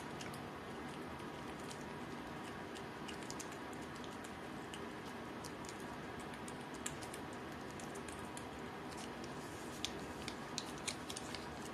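A cat licking a lickable paste treat from a squeezed tube: soft, irregular tongue-and-mouth clicks, coming more often near the end.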